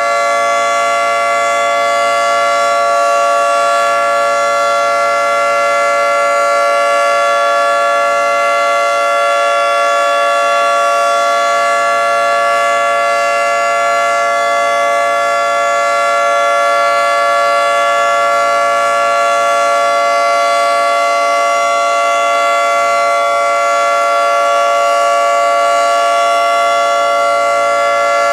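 Federal Signal 2T22 dual-tone outdoor warning siren sounding a steady two-tone chord at full pitch, with no rise or fall, during its monthly test.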